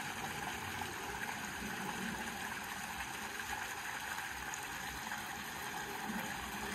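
Steady splashing and trickling of water pouring into a koi pond from its return outlet, with the pond's circulation jets rippling the surface.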